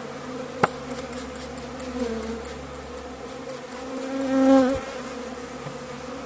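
Honeybees humming steadily around an open top bar hive. A single sharp click comes just over half a second in. A little after four seconds in, one bee flies close past the microphone, its buzz swelling loud and then fading.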